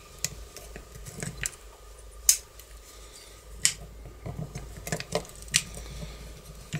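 Scattered small metallic clicks and taps as a spring and small parts are fitted by hand into a steel garage lock case, the sharpest a little over two seconds in and again around three and a half seconds, with a quick cluster near five seconds. A faint steady hum runs underneath.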